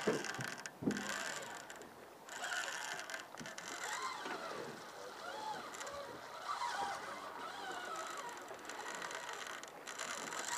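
Shimano Curado baitcasting reel working against a hooked king salmon, its gears and drag clicking as line is cranked in and pulled out under a tight drag.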